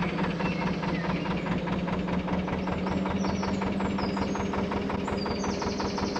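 Lister HR2 two-cylinder diesel engine running steadily, with an even, rapid knocking beat.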